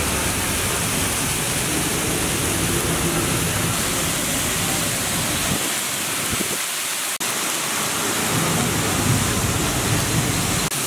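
Steady sizzling on a hot flat street-food griddle (tawa) with chopped onion, tomato, sauce and spices on it, with a brief break about seven seconds in.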